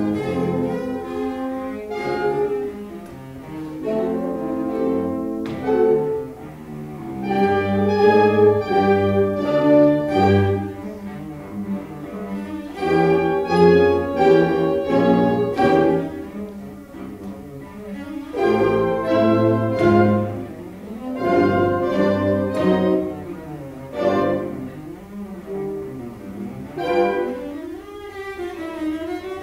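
Solo cello playing a bowed melody of held notes in swelling and fading phrases, accompanied by a symphonic wind band. Near the end the cello glides down and back up in pitch.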